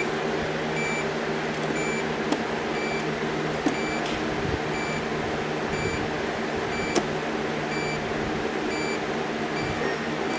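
Samsung side-by-side refrigerator sounding its alarm, a short high beep repeating steadily over a steady machine hum. The beeping is the sign that the fridge is in forced defrost test mode.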